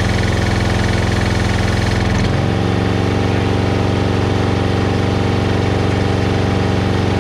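Gas pressure washer's 11 hp Briggs & Stratton I/C engine running steadily while the wand sprays. A little over two seconds in the spray stops and the engine note shifts, with less hiss, as the trigger is released and the pump comes off load.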